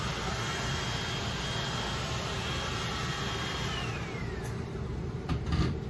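Electric heat gun running with a steady blower noise and a thin whine, switched off about three and a half seconds in, its whine falling in pitch as the fan spins down. A few short knocks follow near the end.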